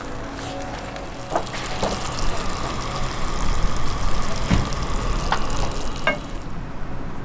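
Ground meat sizzling in a frying pan on a portable camp stove, with a few light clicks and knocks over the steady hiss.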